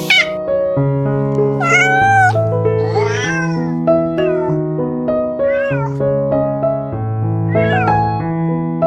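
A cat meowing several times, about four drawn-out meows with rising and falling pitch, over steady background music of sustained keyboard notes.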